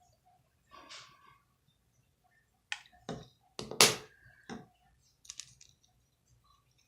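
A few sharp clicks and knocks, like small hard objects being handled and set down, the loudest about four seconds in.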